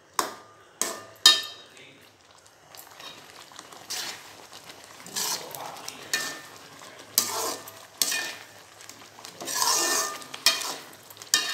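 A metal ladle stirring and scraping thick cooked rava kichadi around an aluminium kadai. It knocks sharply against the pan three times in the first second and a half, then scrapes through the food in strokes about once a second.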